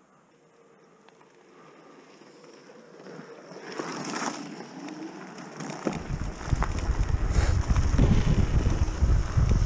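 Wind buffeting the microphone of a handlebar-mounted action camera on a moving e-bike. It sets in suddenly about six seconds in and becomes the loudest sound. Before that, a quieter rolling noise from the ride builds up.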